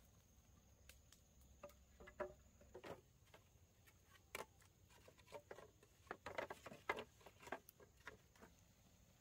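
Light, irregular knocks and clacks of bamboo poles and split bamboo being laid and shifted against each other on a log frame, coming thickest a little past halfway.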